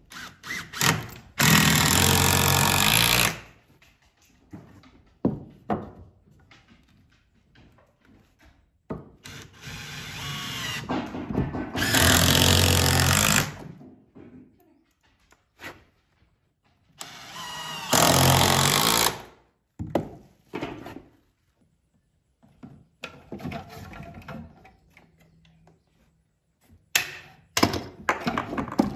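Cordless drill/driver running in three bursts of a second or two each, driving fasteners into metal mounting brackets on a wall stud, with knocks and clatter of handling between the bursts.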